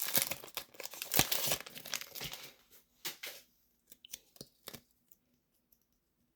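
Foil wrapper of a Pokémon Paradox Rift booster pack crinkling and tearing as it is opened by hand, for about two and a half seconds, followed by a few light clicks and taps of the cards being handled that stop about five seconds in.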